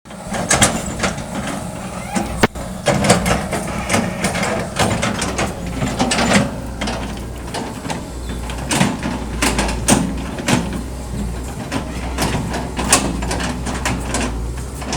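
Hitachi excavator's diesel engine running steadily, with repeated sharp knocks and clatters as logs are handled and stacked.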